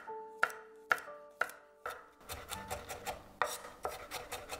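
A chef's knife chopping garlic on a bamboo cutting board. Sharp knocks come about twice a second, then about two seconds in they turn into a quicker, denser run of chops as the garlic is minced.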